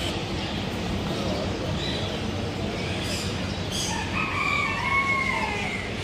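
A rooster crows once, a long call of nearly two seconds starting about four seconds in and dropping slightly in pitch at the end. Short chirps from small caged birds come over a steady background din.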